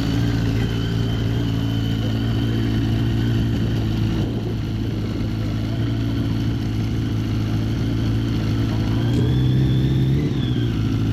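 Kawasaki ZX-10R drag bike's inline-four engine idling steadily at the start line, with a short rise in revs about nine seconds in that drops back a second later.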